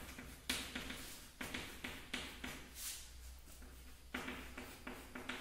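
Chalk writing on a chalkboard: a run of irregular taps and short scratchy strokes.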